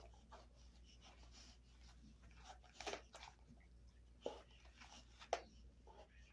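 A dog gnawing on a beef cheek roll: faint, scattered crunches and clicks of teeth on the chew, with a few sharper ones in the second half.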